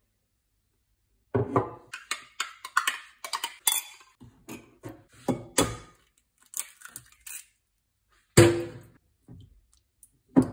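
Kitchen crockery sounds at a glass mixing bowl: a run of knocks, clinks and scrapes as cups of flour and yogurt are tipped and scraped into it, then one sharp knock as an egg is cracked on the bowl, and a wire whisk clinking against the glass near the end.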